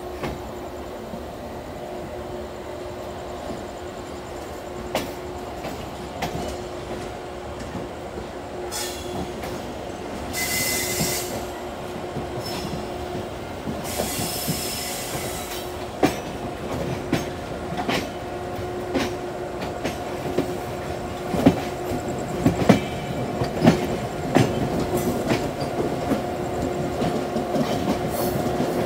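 Express train wheels rolling over the points and rail joints of a yard: a steady squeal with sharp clacks that come faster and louder in the second half. Two brief hisses about ten and fourteen seconds in.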